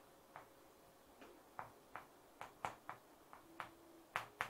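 Chalk writing on a blackboard: about a dozen faint, quick, irregular clicks and taps as the stick strikes the board with each stroke.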